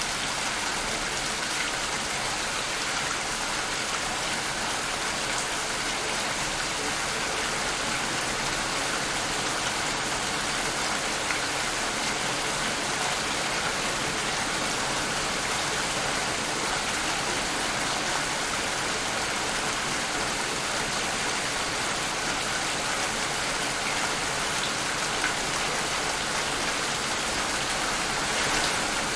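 Steady rain falling on a surface, a constant hiss with the odd distinct drop ticking through it.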